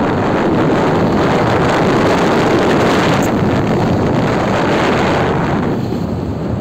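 Steady wind rushing over the microphone of a camera riding on a moving bike, easing a little near the end.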